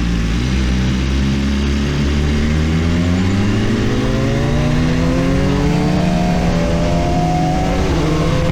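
BMW S1000RR inline-four engine accelerating through the gears: a steady note at first, then a long steady climb in pitch from about three seconds in, a quick drop at an upshift near the end, and climbing again.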